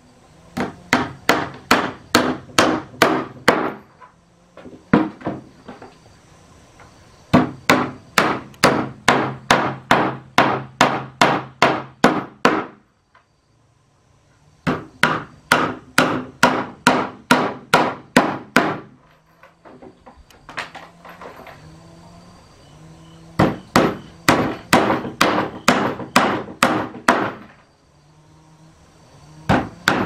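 Claw hammer driving nails through a wooden crosspiece into planks, in runs of quick, even blows about three a second, with short pauses between runs.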